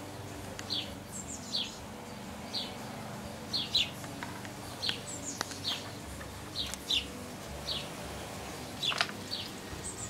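Small garden songbird giving short, high, downward-sliding chirps, about one a second, some in quick pairs.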